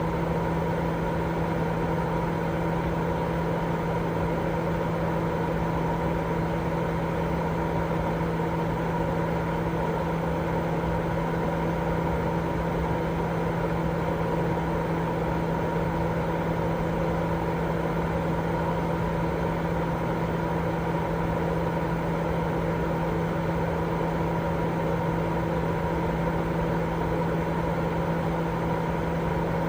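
Baby sleep white-noise track: a steady, unchanging rushing noise with a low, constant hum running through it.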